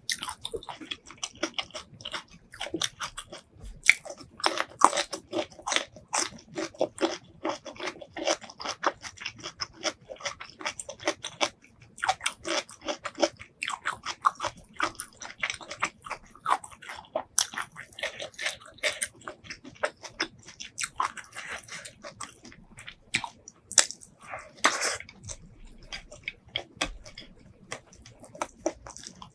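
A person chewing food close to the microphone: a steady, dense run of short mouth clicks and smacks, with a few louder bites.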